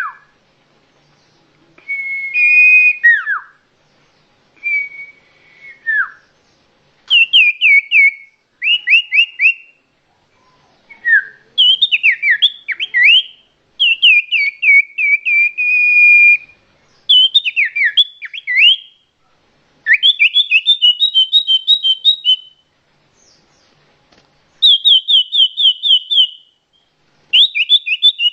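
Songbird singing loudly in repeated phrases of quick, falling whistled notes, each phrase a second or two long with short pauses between.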